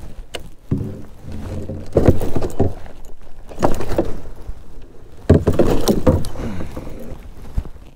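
Water splashing and knocking around a small paddle kayak, in several uneven bursts, the loudest about two, three and a half, and five seconds in.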